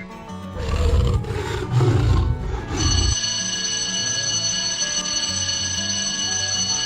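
An animal roars twice, low and rough, about a second apart. Then a steady high electronic ringing tone sounds, over background music.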